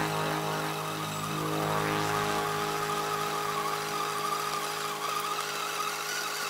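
Electric motor and gearbox of an HG P402 RC crawler whining steadily as it drives, with a rising whine about two seconds in as the throttle opens.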